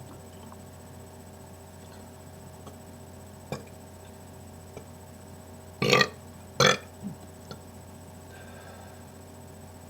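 Two short, small voluntary burps in quick succession about six seconds in, the second following less than a second after the first. They are forced on command from swallowed air, without a drink.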